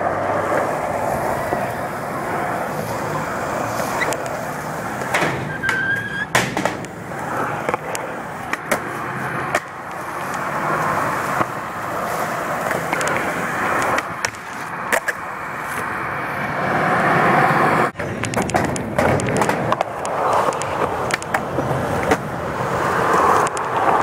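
Skateboard wheels rolling on a concrete skatepark floor, with sharp clacks of the board popping and landing several times.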